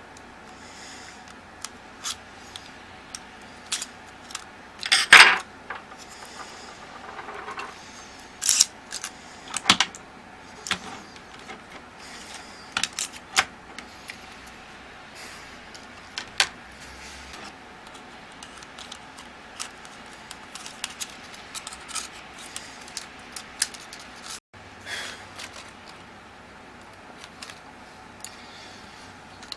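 Scattered small clicks, taps and light scrapes of small parts and tools being handled while a Canon IXY 150 compact camera is disassembled, with a louder clatter about five seconds in.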